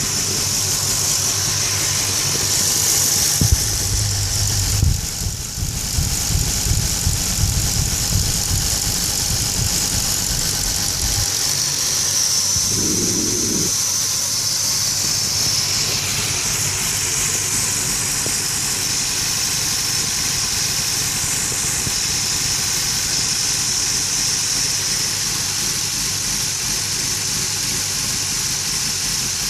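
Lexus IS300's inline-six idling warm and rough with a misfire, the idle shaking the car; the car has a P1349 code, a fault in its variable valve timing. A few knocks and a heavy low rumble come a few seconds in and die away about eleven seconds in.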